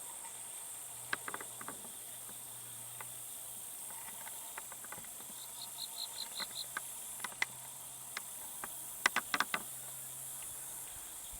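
Insects droning steadily in a late-summer field, with a short run of about seven quick, even chirps halfway through. Scattered sharp clicks come through, the loudest a quick cluster of four or five about nine seconds in.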